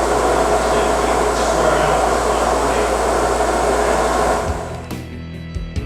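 Steady whirring machinery noise with a constant low hum. It fades out about four and a half seconds in, and music with a regular beat takes over near the end.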